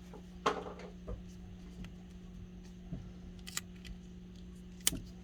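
Paper craft pieces being handled: a few light rustles and small clicks and taps, the sharpest near the end, over a steady low hum.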